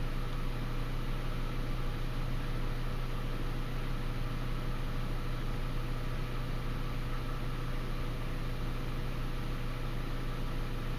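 A steady low machine hum over even hiss, unchanging throughout; no thunder is heard.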